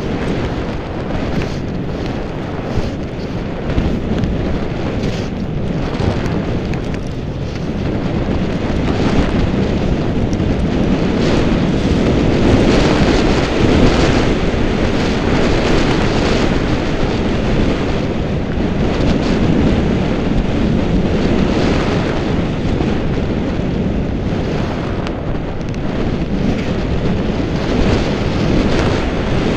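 Wind rushing over the microphone of a goggle-strap-mounted action camera during a downhill ski run, with the scrape of skis over packed, tracked snow underneath. A steady, loud rush that swells to its loudest about halfway through.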